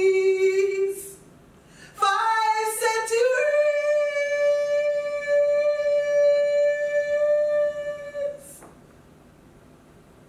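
A woman singing unaccompanied, without instruments. A held note ends about a second in; after a short gap she slides up to a higher note and holds it for about six seconds.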